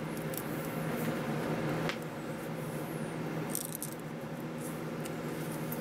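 A steel T-handle tap wrench and 5/8 in. tap being turned by hand in a lathe-held part, guided by a tap follower, giving light metallic clinks and rattles, with a small cluster about three and a half seconds in. A steady low hum runs underneath.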